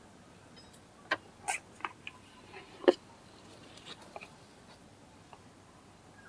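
A handful of short, sharp clicks and knocks, the loudest about three seconds in, over a quiet background.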